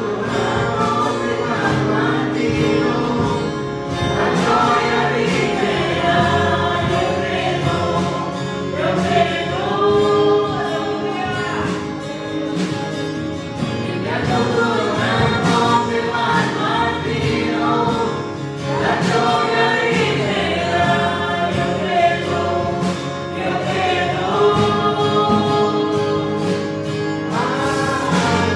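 Christian worship song sung by a group of voices, with music behind it.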